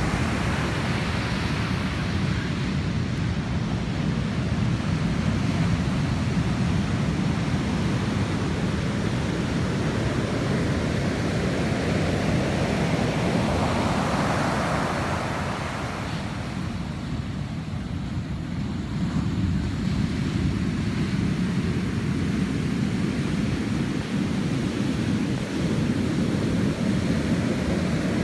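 Ocean surf breaking and washing on the beach, with wind rumbling on the microphone; one wave swells louder about halfway through.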